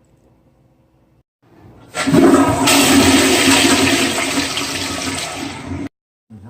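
Rushing, gushing water, in the manner of a flush. It starts about a second and a half in after a faint hum, runs loud for about four seconds and cuts off abruptly near the end.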